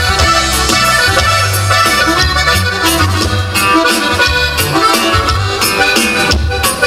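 Live norteño dance music: an accordion carries the melody over a pulsing bass line, in an instrumental passage without singing.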